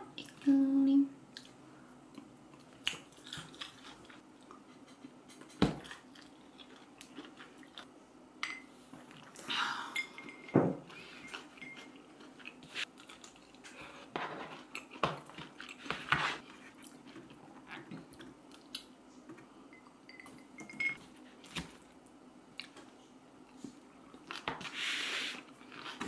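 A person eating salad close up: utensils clicking and scraping in a paper takeout bowl, with chewing. Scattered short clicks and soft crunchy bursts come and go throughout.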